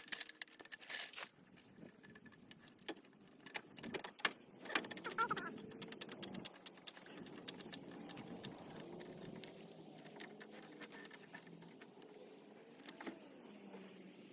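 Metal clinks and clanks from a floor jack and jack stands being handled, sharpest and most frequent in the first six seconds. A faint steady hum runs underneath after that.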